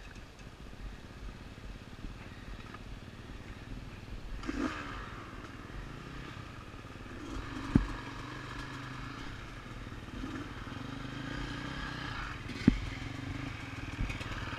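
Dirt bike engines running at low revs as the bikes move along the trail, the sound growing about four seconds in. Two sharp knocks stand out, a few seconds apart.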